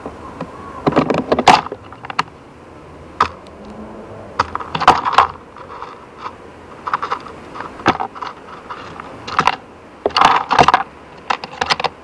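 Magpie pecking at a pile of dried mealworms on a wooden bird table: irregular bursts of sharp taps and dry rattling as its beak strikes the wood and rakes through the worms.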